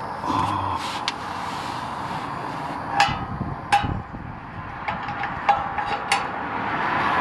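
A handful of sharp metal clinks and taps from about three seconds in, each with a short ring, over a steady hiss. They come from hand work on the exhaust pipe and valve of a BMW 340i while the valve's replacement clip is being fitted to cure a rattle.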